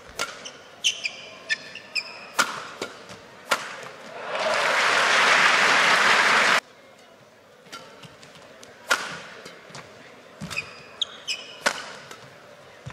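Badminton rally: rackets striking the shuttlecock in sharp cracks, with court shoes squeaking on the floor. About four seconds in, a burst of loud applause lasts some two seconds and cuts off suddenly, then another rally of shuttle hits and shoe squeaks follows.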